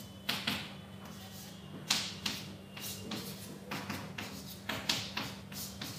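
Chalk writing on a chalkboard: a string of short, irregular taps and scratchy strokes as numbers and symbols are written.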